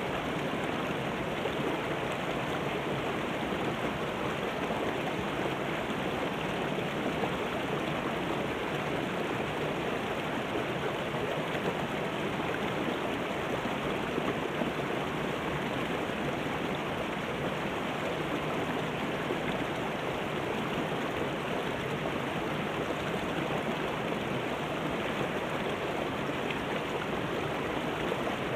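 Shallow rocky river rushing over boulders and small rapids: a steady, even rush of water that does not change.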